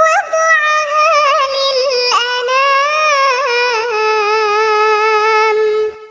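One long, wavering call held for about six seconds, rising and falling slightly in pitch, then breaking off near the end.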